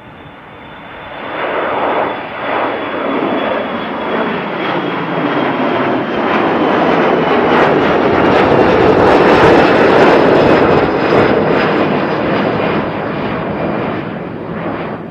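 Boeing 737 jet engines at takeoff thrust as the airliner climbs out and passes overhead: the engine noise swells over the first couple of seconds and is loudest about two-thirds through, with a high fan whine slowly falling in pitch. It cuts off suddenly at the end.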